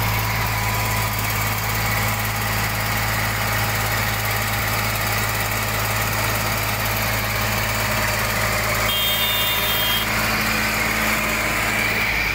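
Tractor diesel engine running steadily at close range: a loud, even low drone.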